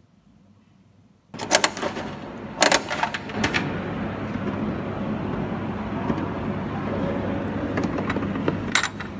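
Coins clinking into the coin mechanism of a coin-operated bouncy ball vending machine: a few sharp metallic clicks in the first few seconds, then a steady background hum with more clicks near the end.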